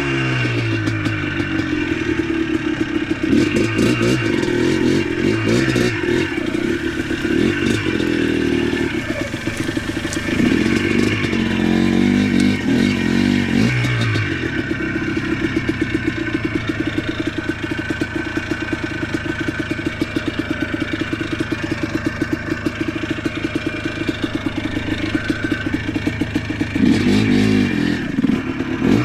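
ATV engine running and revving up and down as it creeps along, settling into a steady low throb for a stretch in the middle and revving again near the end, with clattering over it.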